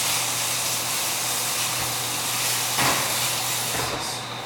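Food sizzling in a frying pan on the stove: a steady hiss over a low hum, its high part fading near the end. One soft knock about three seconds in.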